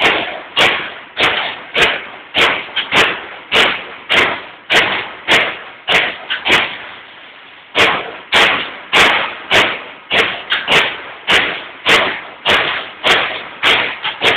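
Baykal BPM-T CNC turret punch press punching sheet metal: a regular run of sharp punch strokes, a little under two a second, with a pause of about a second halfway through.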